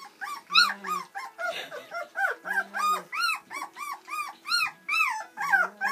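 Bernese Mountain Dog puppies, a few weeks old, whimpering and squealing in a quick run of short cries that rise and fall in pitch, about three a second.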